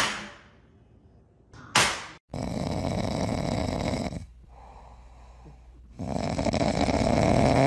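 Two sharp knocks, one at the start and another about two seconds in, then a dog asleep on its back snoring: two long, loud snores with a quieter breath between.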